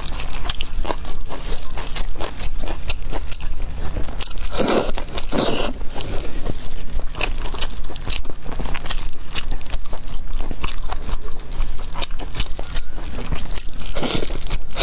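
Close-miked eating sounds: a person biting and chewing food, with many sharp, quick mouth clicks. There are a few louder, longer mouth sounds about four and a half seconds in, a second later, and near the end.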